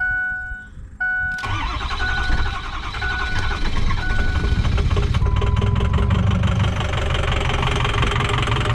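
A repeating two-tone warning chime, then about a second and a half in the 6.0 Powerstroke V8 turbo-diesel cranks and fires quickly, its IPR valve freshly cleaned, and settles into a steady idle while the chime keeps pinging for a few more seconds.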